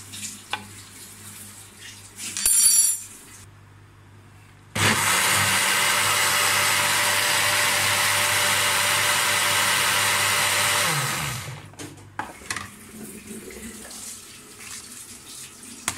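Electric countertop blender running for about six seconds, grinding tomatoes, onion and green chillies into a paste, then spinning down with a falling hum. A short, sharp sound comes about two and a half seconds in, before the motor starts.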